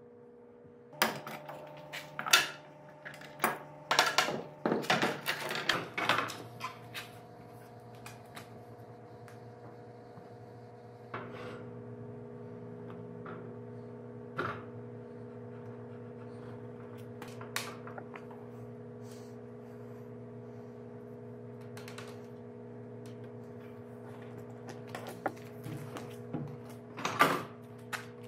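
Wooden clacks and knocks as boards are handled and an upright board is set into a routed dado slot for a test fit, a quick cluster in the first few seconds, then single knocks spread out and a loud pair near the end. Under them runs a steady low machine hum.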